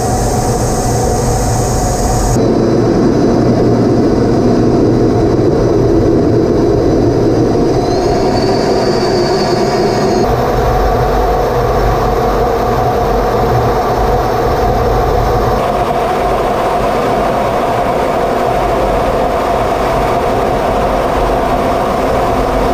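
Steady cockpit noise inside an F-15C Eagle in flight: the jet's engines and the air rushing over the canopy, a constant loud rush with a steady hum. Its tone shifts suddenly a few times, at about 2, 10 and 16 seconds in.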